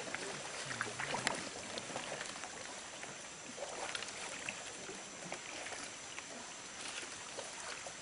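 Wooden canoe being paddled through water: the paddle dipping and splashing with an occasional knock, a stroke every few seconds, over steady water noise.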